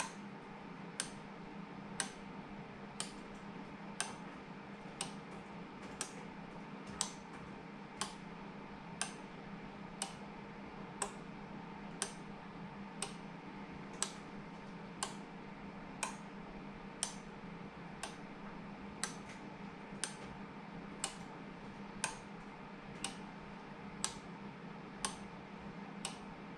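Sharp, even clicks, one every second, over a faint steady hum.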